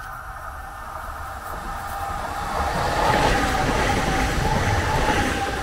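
A Lidingö line light-rail tram passing about a metre away, getting louder as it comes by: low rumble and rushing noise, with a steady high whine setting in about halfway through.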